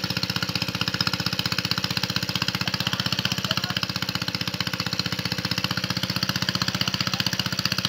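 A small engine running steadily with a fast, even beat of about eight to ten strokes a second.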